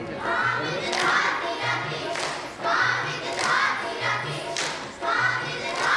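Group of children singing together in chorus, with musical accompaniment that carries a repeating low beat.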